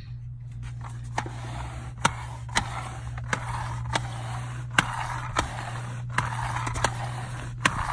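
iPet Roller reusable pet-hair roller rubbed back and forth over a cloth car seat: a steady brushing scrape with a sharp click about every three-quarters of a second.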